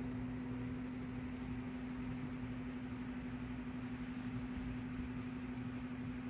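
Steady low mechanical hum over an even hiss.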